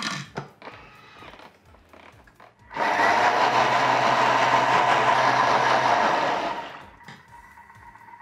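Countertop cooking blender running its blade at high speed for about four seconds, blending a thick pumpkin purée. It starts suddenly about three seconds in, runs steady with a whine and a low hum, and winds down near the end. Light knocks of the lid cap being fitted come before it.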